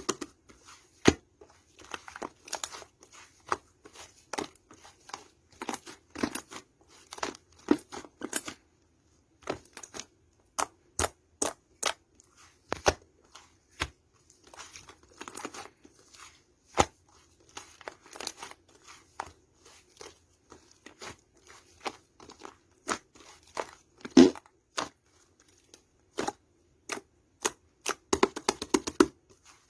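Slime-like clay being squeezed and poked by hand, giving irregular sharp clicks and short crinkly crackles, with a denser run of crackles near the end.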